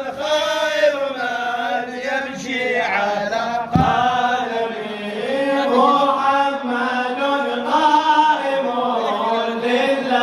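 Male voices chanting an Arabic devotional mawlid melody in praise of the Prophet Muhammad, held and bending lines sung without a break. A single dull thump sounds a little before four seconds in.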